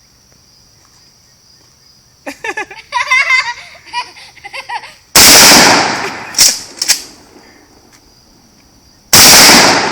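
Two shotgun blasts from a Mossberg 500 pump-action shotgun, about four seconds apart. Each is loud enough to clip and dies away over about a second, and a couple of sharp clacks follow the first. Crickets chirp steadily in the background.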